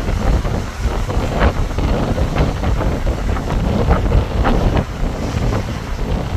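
Strong wind buffeting the microphone in an uneven rumble, with small waves splashing against the shore every second or so.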